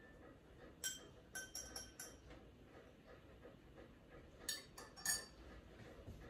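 Light clinks of glassware and a metal bar spoon: a quick run of about five clinks a second in, then three more around four and a half seconds in.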